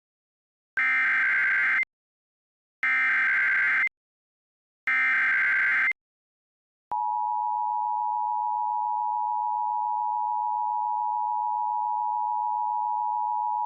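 Three Emergency Alert System SAME header data bursts, harsh digital squawks about a second long and a second apart. From about seven seconds in they are followed by the steady two-tone EAS attention signal, which announces an emergency alert, here a tornado warning.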